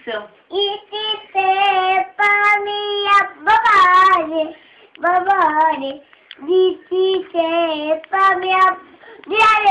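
A child singing a song: phrases of held notes, some wavering, with short breaks between them.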